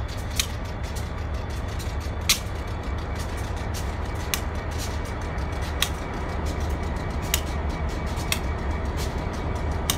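RJ Corman diesel-electric locomotive 5409 idling: a steady low rumble, with scattered sharp clicks.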